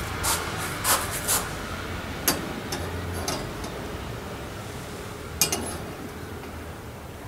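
Thin metal rods clinking against a Lixada stainless-steel windscreen ring as they are laid across its rim: several sharp, brief metallic clicks over the first six seconds.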